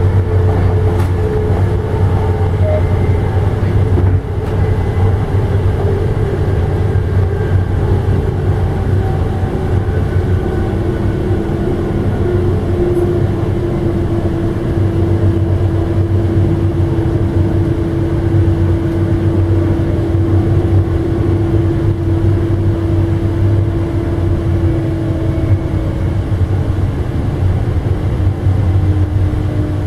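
Ride noise of a moving Amtrak passenger train heard inside its rear car: a steady, loud low rumble from the running gear on the track, with a hum whose pitch slowly drops over the second half.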